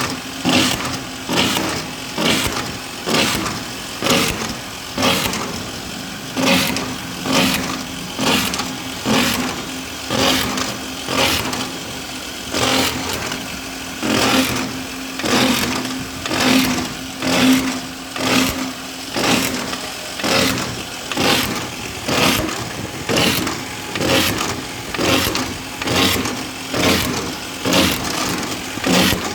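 Engine-driven hydraulic drilling machine running, with a sharp pulse about once a second over a steady engine hum. The hum fades about two-thirds of the way through while the pulses keep on.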